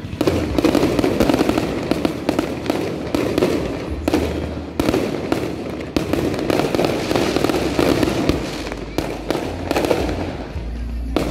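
Aerial fireworks display going off: a rapid barrage of bangs, several sharper reports standing out, over dense crackling.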